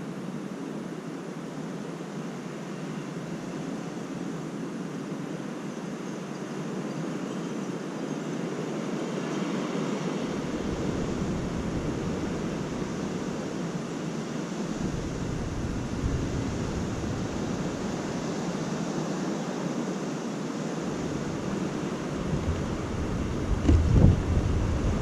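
Gusty high wind rushing and slowly building. Wind buffets the microphone in low rumbles from about ten seconds in, and more heavily near the end.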